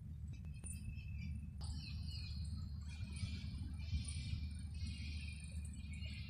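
Many small birds chirping busily in the trees, starting about a second and a half in, over a steady low rumble.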